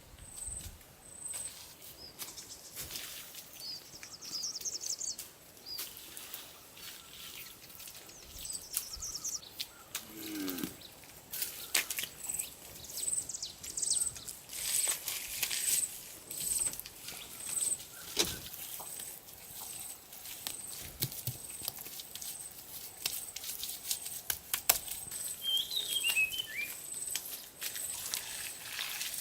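Forest sounds: a high chirp repeating about once a second and a few other bird calls, over irregular scraping and knocking.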